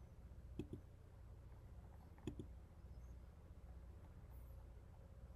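Computer mouse clicking three times, each click a quick press-and-release pair, over near-silent room tone.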